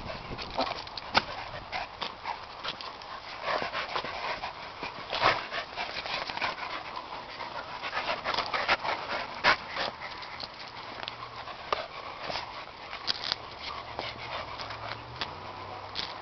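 Small dogs panting and scuffling as they play together, with many short, irregular clicks and scrapes.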